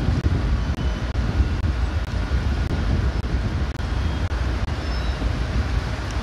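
Steady, low outdoor rumble of wind buffeting the microphone over distant traffic noise.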